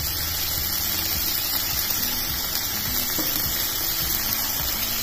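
Chickpeas and radish greens frying in oil in a pan on a gas stove: a steady sizzle over a low, steady hum.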